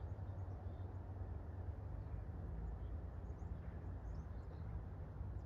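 Quiet outdoor woodland ambience: a steady low rumble with a few faint, short high chirps scattered through it.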